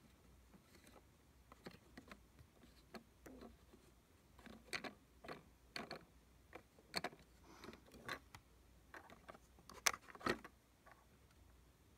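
Faint, irregular clicks and taps of small plastic LEGO parts being handled as a minifigure is turned on its round plate and its helmet is lifted off, with the two loudest clicks about ten seconds in.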